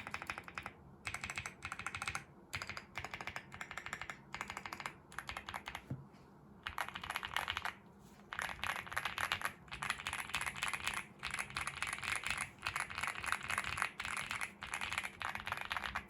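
Fast typing on a Finalkey V81 Plus mechanical keyboard with lubed AKKO Cream Yellow Pro linear switches, PBT doubleshot keycaps, full foam and band-aid mod: rapid runs of keystrokes broken by brief pauses, the longest about six seconds in.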